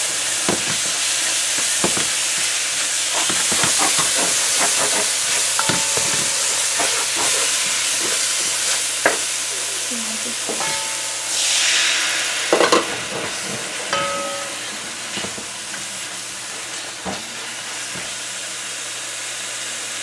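Onion, celery and pepper sizzling in hot oil and curry paste in a pot, with a silicone spatula scraping and knocking against the pot as it is stirred. A brief louder rush of hissing comes about halfway through, and the sizzle settles a little quieter after it.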